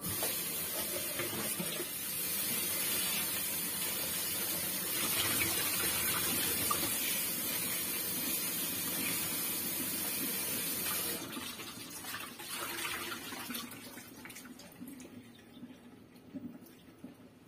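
Kitchen tap running into a plastic colander, a steady hiss of water for about eleven seconds. Then the tap is turned off and water splashes and drips as the colander is tipped and shaken to drain.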